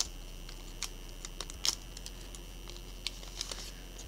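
Magic: The Gathering cards and their foil booster wrapper being handled, with a few soft clicks and rustles as the cards are slid out of the pack. The loudest tap comes about one and a half seconds in, over a faint steady high whine.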